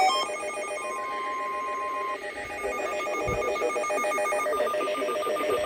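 Emergency Alert System signalling tones: rapid, warbling electronic beeps at several pitches, with a steady alert tone that stops about two seconds in.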